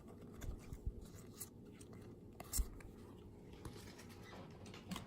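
Baseball cards being handled and shuffled through: faint paper rubbing and a few soft taps, the clearest about two and a half seconds in.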